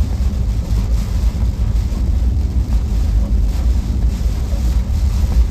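Ford F-150 pickup driving slowly on a wet road, heard from inside the cab as a steady low rumble of engine and tyres.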